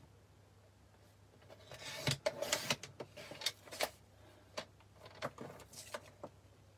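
Stampin' Up paper trimmer cutting white card: the blade carriage is drawn along its rail with a scraping hiss and a quick run of clicks about two seconds in. Lighter clicks and paper rustles follow as the cut sheets are moved on the trimmer.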